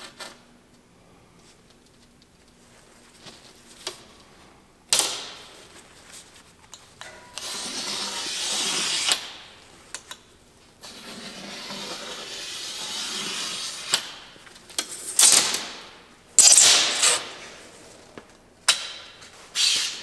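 Marking out a steel plate: a scriber scraping along a steel rule in two long strokes, between sharp metallic clanks of steel tools and pieces set down on a steel welding table.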